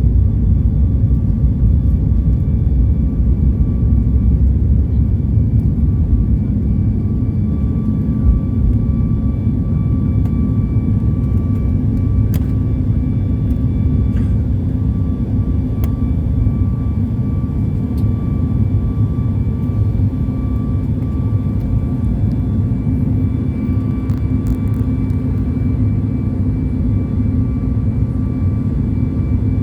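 Steady, loud low engine rumble with a faint constant whine above it, unchanging throughout, as from a vehicle or aircraft heard from inside.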